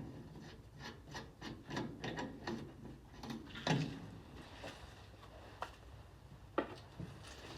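Irregular metal clicks and knocks of a bracket and bolt being fitted to a slurry tanker's valve handle, with a few sharper strikes about halfway and near the end.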